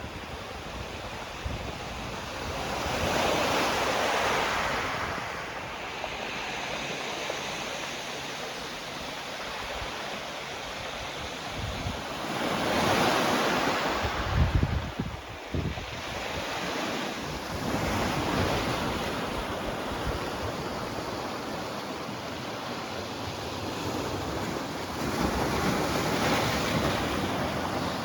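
Outdoor rushing noise that swells and fades in slow surges every several seconds, with wind buffeting the microphone in low rumbles about halfway through.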